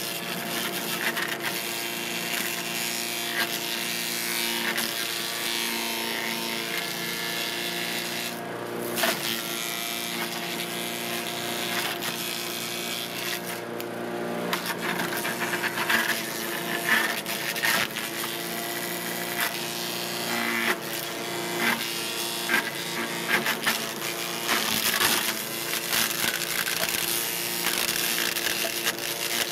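Cub Cadet CS 3310 gas chipper shredder running steadily, with irregular sharp cracks and clatter as material is fed through and chipped, coming more often in the second half.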